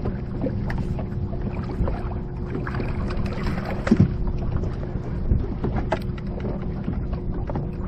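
A boat motor hums steadily at a few fixed pitches, with wind on the microphone. Scattered knocks and clicks come from the rod, reel and line being handled, with one louder knock about four seconds in.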